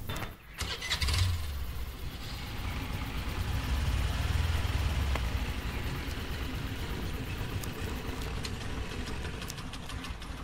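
Motor scooter's small engine starting about a second in, then running as the scooter rides off, loudest in the middle and easing away toward the end.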